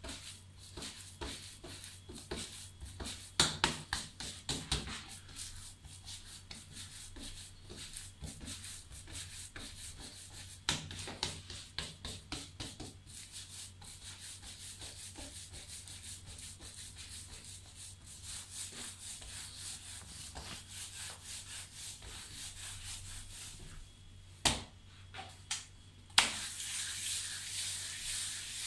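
Bare hands rubbing, pressing and rolling a dough sheet spread with poppy seed paste on a marble slab: soft rubbing with scattered light taps and slaps. Near the end the rubbing turns louder and hissier as a palm smears the paste around the marble.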